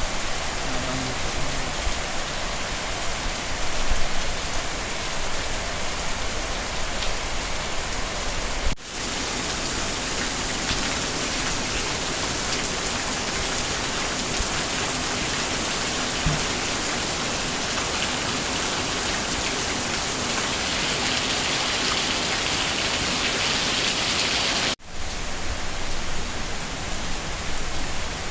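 Steady rain falling and splashing on surfaces: a dense, even hiss. It cuts out for an instant twice, about nine seconds in and about twenty-five seconds in, and between those two breaks it sounds hissier.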